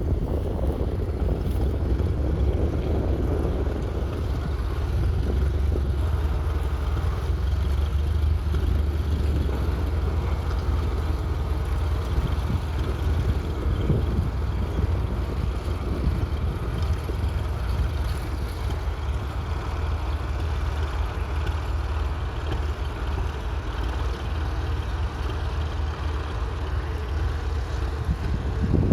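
1921 Fordson Model F's 4.1-litre four-cylinder distillate engine running steadily with a low, even rumble.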